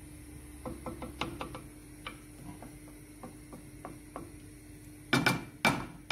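Wooden spoon stirring chopped onions in olive oil in a glazed tagine, making a run of light clicks against the dish. Near the end come two loud knocks of the spoon against the tagine.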